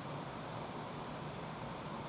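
Steady rushing of a mountain stream running high and swollen after heavy rain.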